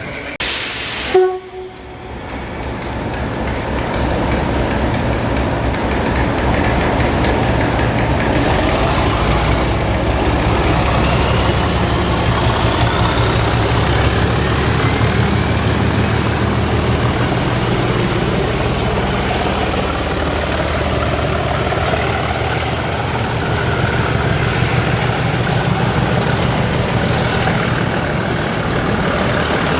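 A train running at a station platform: a steady low engine drone with a whine that rises in pitch for several seconds and then holds high. A short sharp hiss sounds near the start.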